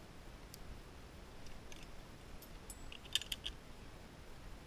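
A quick cluster of sharp metallic clicks and clinks about three seconds in, from zipline carabiners and a trolley being clipped onto the cable, over a faint low rumble.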